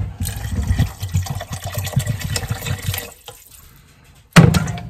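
Water poured from a small stainless kettle into a pot of chili, splashing for about three seconds and then stopping. Near the end, a sudden loud bump.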